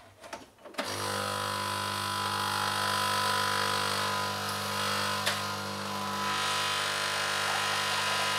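A few light clicks, then about a second in a coffee machine's pump starts and hums steadily while it brews coffee into a ceramic mug, with one sharp tick about five seconds in.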